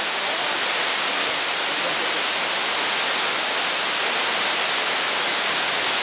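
Waterfall pouring down a cliff into a rocky pool: a steady rush of falling water.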